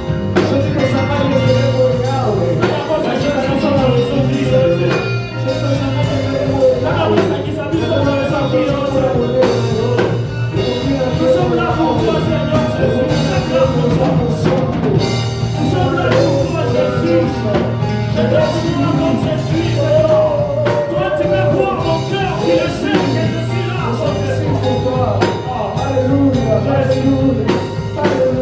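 Live worship music from a church band: steady bass, drum kit and a wavering melody line, with singing.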